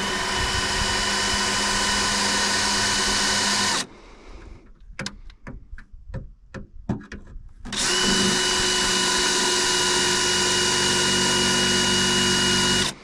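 Power drill running at a steady pitch in two long runs, with a few clicks and knocks in the pause between them. It is drilling into a bolt on a snowmobile's rear bumper that no socket would fit.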